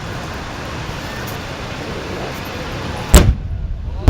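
An aerial firework shell bursting with one sharp, loud bang about three seconds in, over a steady wash of noise.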